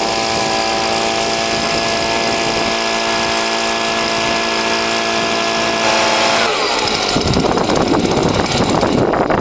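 Leaf blower running at a steady high speed, a motor tone over a strong rush of air, as it blows dry leaves off roof shingles. About six and a half seconds in its pitch drops as it winds down, and a rough, gusty rushing noise takes over.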